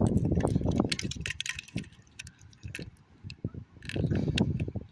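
Close handling noise: clicks and rustling, busiest in the first second and again near the end, with a quieter stretch in between.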